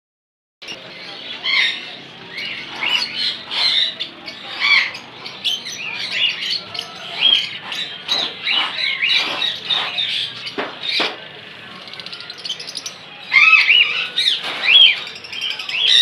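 A roomful of caged small parrots (lovebirds, budgerigars and conures) squawking and chirping over each other in many short calls. A louder burst of squawks comes about thirteen seconds in.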